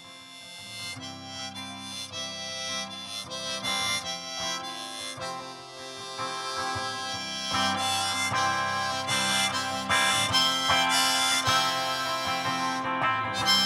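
Live instrumental break: a harmonica lead over a strummed hollow-body electric guitar, growing louder through the first half and then staying full.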